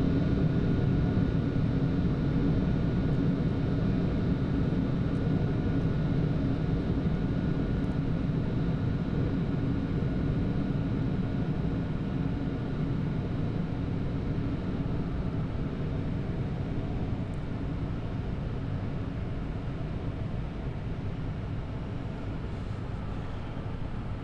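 Boeing 747-8F flight deck during the climb: a steady rush of airflow and engine noise with a faint steady whine, slowly getting quieter.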